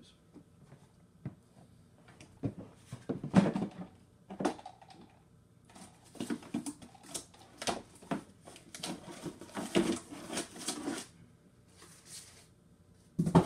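Hard plastic tanks and parts of a Bissell Big Green carpet cleaner being handled, knocking and clattering. The loudest knock comes about three and a half seconds in. Then comes several seconds of scraping and rustling as a small cardboard box is taken out of the machine's top.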